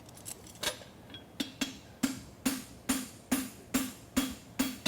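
Hand hammer striking a hot steel horseshoe bar on an anvil in a steady rhythm of about two or three blows a second, each with a short ring, as the heel of the shoe is forged. A few lighter taps come first.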